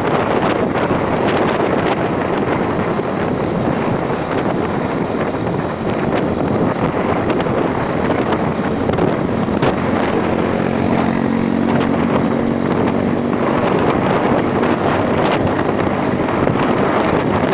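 Wind noise on the microphone of a moving vehicle, with its engine running underneath. An engine tone stands out for a few seconds about ten seconds in.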